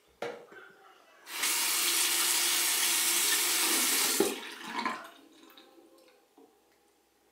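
Bathroom sink faucet turned on, water running steadily for about three seconds, then shut off.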